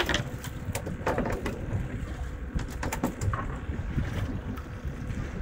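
Low wind rumble on the microphone, with a few sharp clicks and knocks scattered through it.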